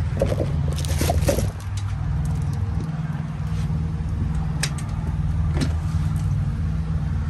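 Semi truck's diesel engine idling with a steady low rumble. A cluster of clicks and rattles comes in the first second and a half, and two sharp ticks follow a few seconds later.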